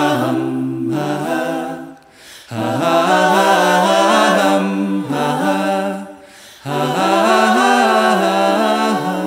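A group of voices singing a slow melody together in harmony, with no instruments heard, in three phrases with short breaks between them.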